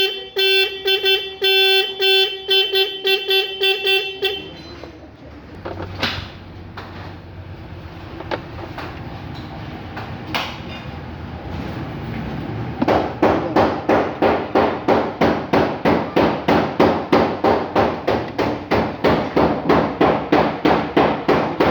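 Maruti Suzuki Swift car horn being tested, sounding in a run of short, loud honks for about four seconds, then stopping. A few faint clicks follow, and past the middle a steady run of sharp knocks starts, about three a second.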